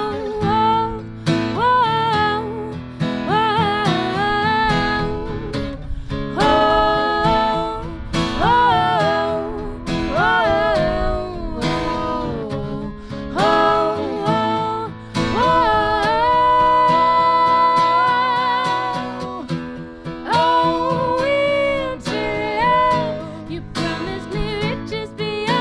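Acoustic song: strummed acoustic guitar under a melody line with long held notes that waver with vibrato.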